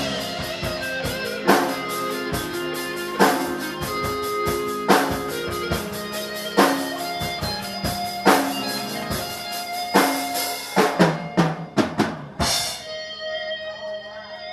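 Live rock band playing: drum kit with crashing cymbals and heavy accents about every second and a half, over guitar. Near the end a quick run of drum hits leads into a held chord that rings out.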